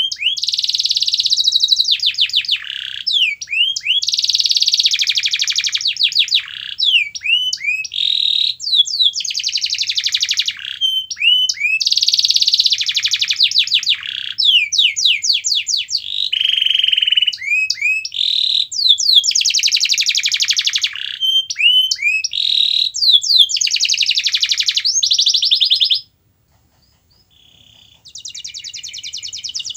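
Domestic canary singing in long phrases: fast rolling trills alternating with runs of quick downward-swept whistles. The song breaks off for about two seconds near the end, then a quieter trill starts again.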